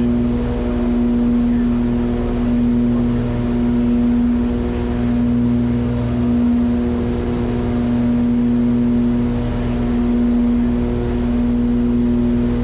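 Piper Aerostar 700's twin piston engines and propellers droning steadily inside the cockpit: one strong low hum with higher tones stacked above it. The drone swells and fades evenly about every second and a half.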